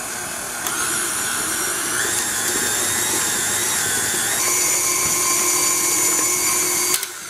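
KitchenAid Classic stand mixer's motor running as its paddle beats cream cheese and sugar; the speed is raised in three steps, the pitch of the whine jumping up each time, and the motor is switched off near the end.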